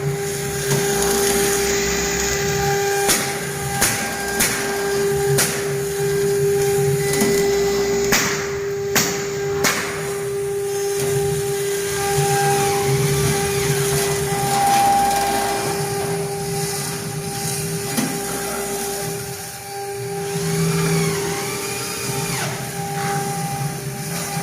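Stone CNC router's spindle running steadily with a constant whine as the bit engraves stone, with sharp clicks in the first ten seconds.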